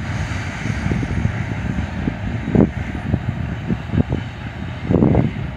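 Low, steady rumble of a long freight train's last cars rolling away down the track, with a few short gusts of wind hitting the microphone, one of them just before the end.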